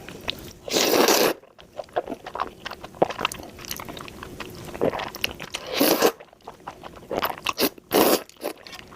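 Close-miked eating of jjajangmyeon (black bean noodles): a few loud bites or slurps about a second in and again around six to eight seconds in, with chewing and mouth clicks between them.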